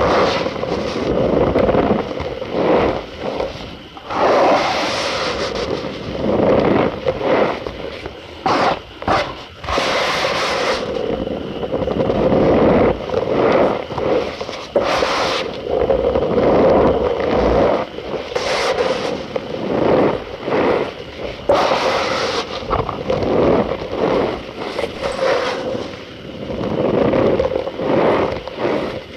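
Cornstarch powder being pressed and rubbed by hand, giving a continuous squeaky crunching with irregular louder surges every second or two.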